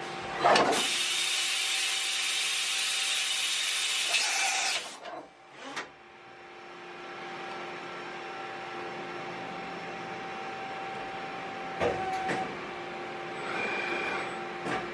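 Mori Seiki NH4000 DCG horizontal machining center cycling: a steady machine hum with a loud hiss for about four seconds, starting just after the start. About twelve seconds in there is a short knock, and a shorter hiss follows near the end.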